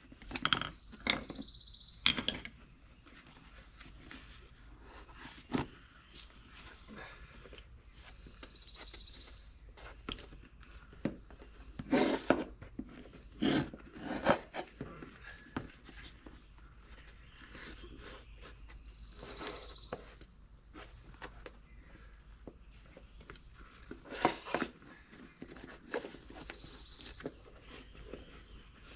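Irregular clunks, knocks and scrapes of a screwdriver prying a small wheelbarrow tire off its rim. The busiest stretch comes about halfway through, with a faint steady high tone underneath.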